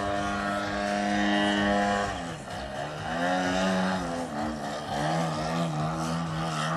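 Engine and propeller of a radio-controlled Edge 540 aerobatic model plane in flight: a steady, high-pitched drone that drops in pitch about two seconds in, wavers up and down, then holds steady at a lower pitch.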